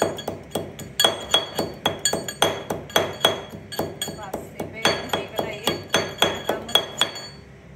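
Steel pestle pounding coriander leaves and green chillies in a steel mortar: a steady run of ringing metallic clinks, about three strikes a second, that stops shortly before the end.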